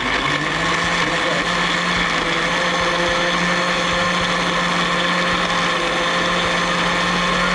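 Small electric countertop blender running steadily at one even pitch, puréeing tomatoes and onions into a sauce paste.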